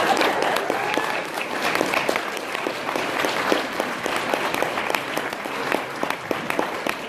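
Audience applauding, the clapping loud at first and slowly thinning out.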